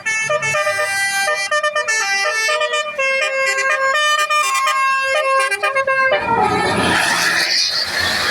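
Basuri telolet bus horn playing a melody in stepped notes, several tones sounding together, for about six seconds. A loud burst of noise then takes over.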